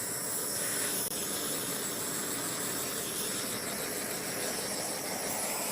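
Steady hiss of continuous noise with no distinct events.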